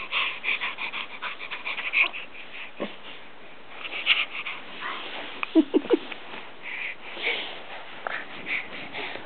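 Six-month-old baby's rapid, breathy panting and huffing, with three short voiced grunts about five and a half seconds in.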